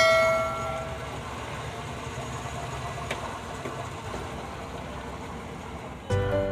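Homemade brake disc lathe running: the electric motor and belt-driven spindle spin a brake disc with a steady, even machine noise. A metallic ring dies away over the first second, and music comes in near the end.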